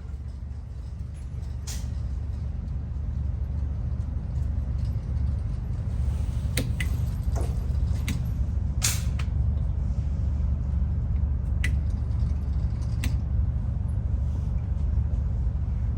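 Steady low rumble that swells slightly over the first few seconds, with a handful of sharp clicks and taps scattered through it.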